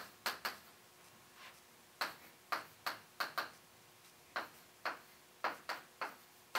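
Chalk on a chalkboard while writing: about fifteen short, sharp taps and clicks at an irregular pace, with a pause of about a second near the start.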